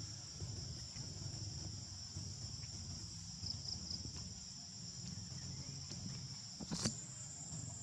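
Insects droning steadily at a high pitch, over a low rumble, with one sharp click about seven seconds in.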